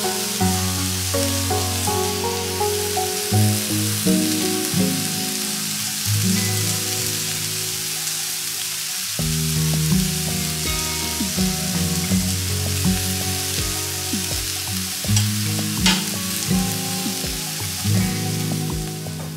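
Chicken sizzling on the domed grill plate of a Silvercrest electric tabletop grill as it fries, a steady hiss that runs under background music with held notes.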